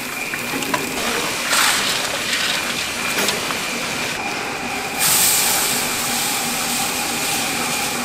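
Motor-driven stirring kettle running with a steady high whine as its paddle churns hot syrup and peanuts around the stainless steel pot. A loud rushing hiss starts suddenly about five seconds in.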